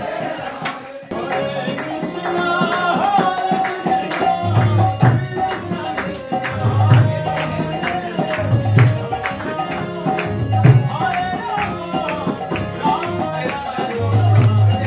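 Background music: a devotional song with a sung melody over a steady beat of jingling hand percussion and a low bass line, briefly dipping about a second in.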